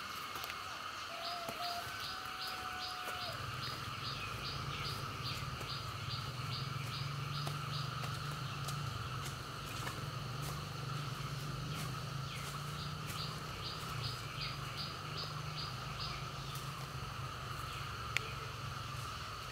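Outdoor rural ambience: insects drone steadily while a run of high, evenly spaced chirps at about three a second plays twice, with a few short bird whistles near the start. A low steady hum comes in about three seconds in and runs on under it.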